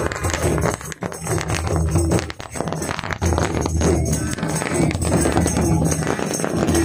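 Folk drum ensemble of mandar barrel drums, a stick-beaten dhol and a metal-shelled drum playing together in a continuous dense rhythm.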